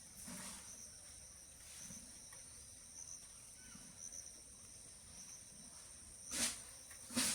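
Steady high-pitched insect trilling of garden ambience, with two short, loud, sharp sounds near the end.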